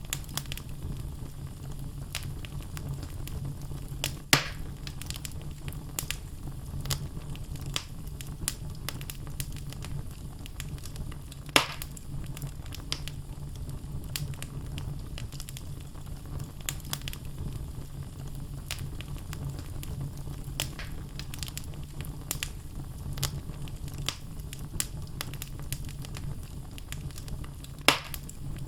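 Wood fire in a fireplace burning steadily, with a low rumble of flame and frequent crackling of the logs; three louder pops stand out, about four, eleven and twenty-eight seconds in.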